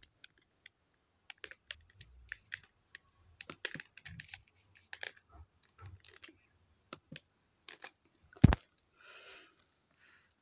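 Irregular clicks and taps on a Lenovo laptop's keys and touchpad, with one much louder, sharper click about eight and a half seconds in.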